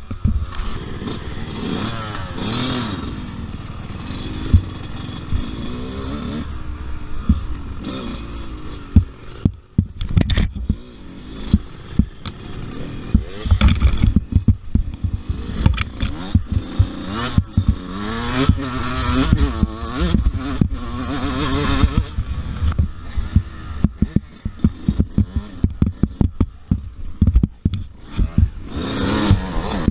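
Dirt bike engine revving up and down over and over as it is ridden on a rough woods trail, with frequent knocks and clattering from the bike jolting over the ground.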